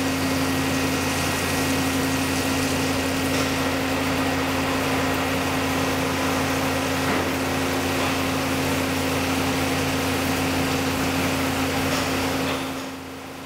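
CNC mill's spindle driving a 1/8-inch carbide end mill through a deep slot in 304 stainless steel, 175% of the tool's diameter deep, under flood coolant. A steady hum with one clear pitch over the hiss and splash of the coolant. The sound drops off sharply near the end.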